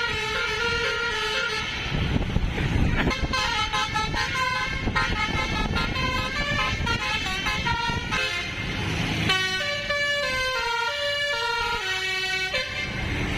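Basuri multi-tone bus horn playing a melody in quick stepped notes, with a short break about eight seconds in before a falling run of notes, over a low rumble.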